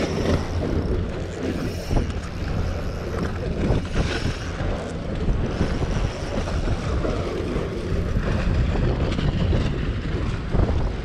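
Wind buffeting the microphone: a steady low rumble that rises and falls in gusts.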